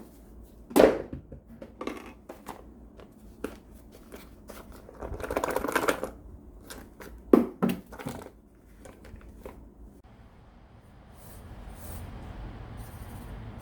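Small hand tools being handled and set down on a hard surface: scattered clicks and knocks, a rubbing scrape about five seconds in, and a soft steady hiss near the end.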